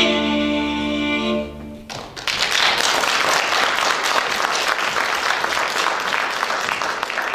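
Fiddle-led folk dance music ends on a held chord about two seconds in, then an audience applauds.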